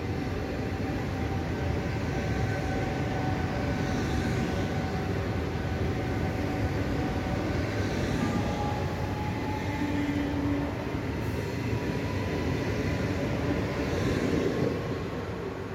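Two coupled Z 21500 (ZTER) regional electric multiple units running past: steady wheel-on-rail rumble under a thin electric motor whine that rises slightly in pitch, easing off near the end as the train moves away.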